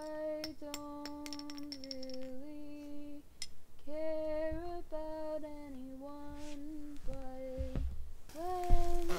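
A woman's voice singing a slow, wordless melody in held notes that step up and down. A lit firework's fuse crackles over the first second or so, and near the end a hiss rises as the firework burns.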